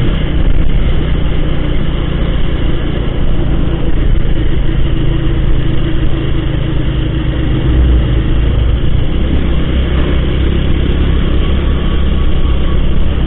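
Honda motorcycle under way: its small engine running steadily, mixed with heavy wind and road rumble, which swells a little past the middle.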